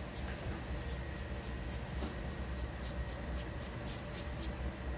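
Knife slicing through a stack of nopal cactus pads held in the hand, a quick run of crisp cuts about three or four a second that thins out near the end.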